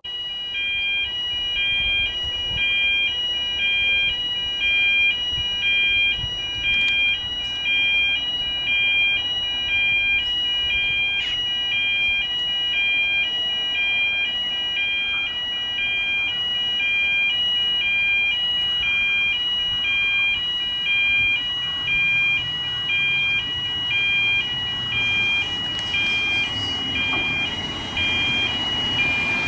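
Electronic two-tone warning alarm sounding steadily, switching back and forth between a higher and a lower pitch in an even repeating cycle. Near the end the rumble of an approaching diesel railcar grows beneath it.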